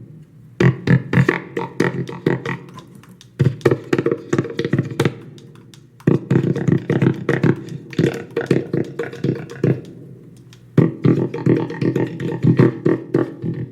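Cigar box percussion box with a piezo disc pickup, tapped by hand and run through a pitch-shift, echo and plate-reverb effects pedal: four quick runs of taps with short pauses between them, each hit leaving a pitched, echoing tail.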